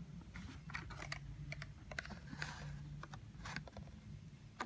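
Faint scattered clicks and short crackles of a Hot Wheels car's plastic blister pack being handled, over a low steady hum.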